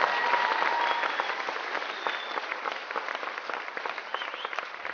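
Audience applauding, a dense patter of many hands clapping that is loudest at the start and gradually tapers off.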